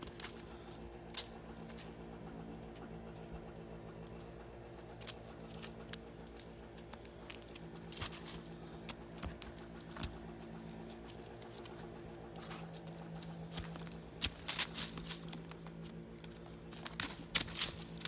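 Footsteps crunching and rustling in dry fallen leaves, a few scattered steps that come thickest about three-quarters of the way through and again near the end, over a faint steady hum.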